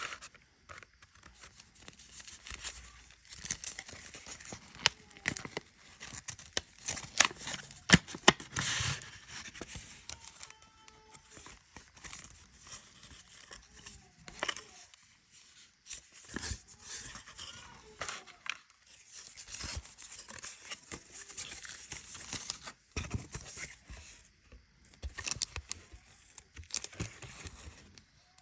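Paper packaging being handled and torn open: irregular crinkling and tearing with small sharp clicks and knocks, easing briefly about halfway through.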